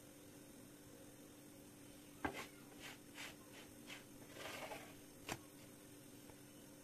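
Wooden spatula knocking on a non-stick pan and sliding under a flatbread to turn it: a sharp knock, a few light taps, a short scrape, then one more knock, over a faint steady hum.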